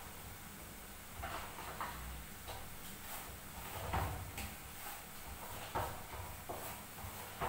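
Hands kneading atta dough in a steel paraat: irregular soft thuds and scrapes as the dough is pressed and pushed against the metal plate, the loudest about four seconds in.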